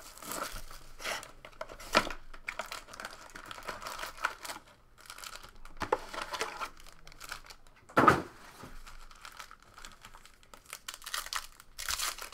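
Foil trading-card pack wrappers crinkling as the packs are handled, with tearing as a pack is ripped open and sharp handling knocks, the loudest about two and eight seconds in.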